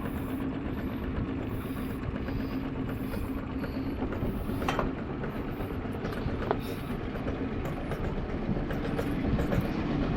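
Boat engine running steadily with a low, even drone. Two short sharp clicks come about halfway through.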